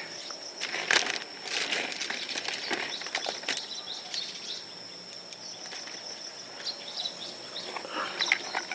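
A steady high-pitched insect drone with irregular rustling and sharp knocking or scraping sounds over it.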